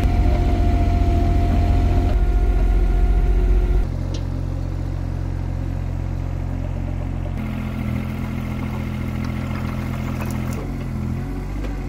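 Mechanical digger's engine running steadily, its level and pitch shifting abruptly several times; it drops noticeably about four seconds in.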